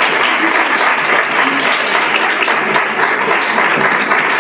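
Audience applauding in a hall, steady clapping throughout.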